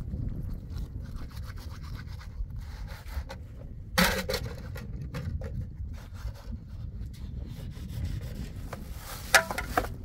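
Scouring pad scrubbing a plastic cutting board, a quick run of scratchy rubbing strokes over a steady low wind rumble on the microphone. A sharper knock sounds about four seconds in, and a brief louder clink near the end.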